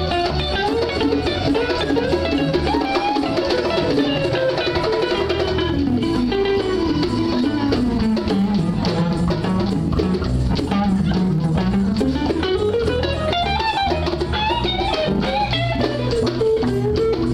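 Live band playing experimental jazz, with electric guitar to the fore over drums and bass. Near the middle a melodic line slides down low and then climbs back up.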